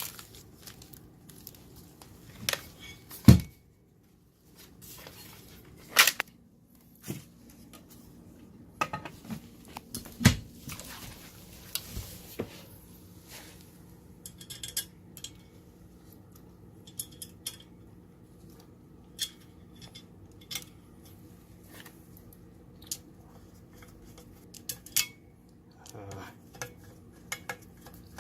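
Steel TV-stand parts and screws being handled and fitted: scattered metallic clinks and knocks, the loudest about 3, 6 and 10 seconds in, followed by a run of lighter ticks and clicks.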